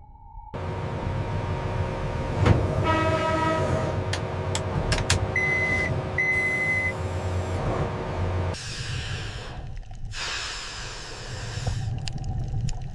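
Low rumble of heavy machinery with metallic clicks and clanks, and two short electronic beeps about five and six seconds in; it turns hissier in the second half.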